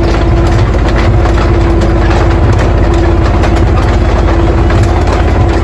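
Sound effect of a heavy tank engine idling: a fast, steady low throb with a constant hum over it, starting and stopping abruptly.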